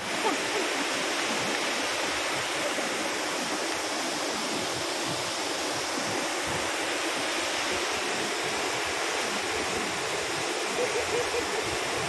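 Waterfall pouring down a steep rock face: a steady, unbroken rush of falling water.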